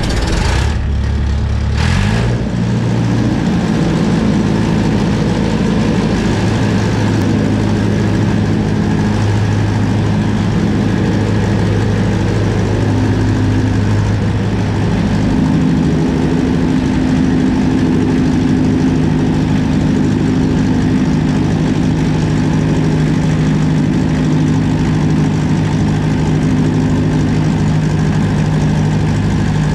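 Combine harvester's diesel engine starting up, settling into a steady run within the first two seconds and running on; its note changes about halfway through. Heard close to the exhaust.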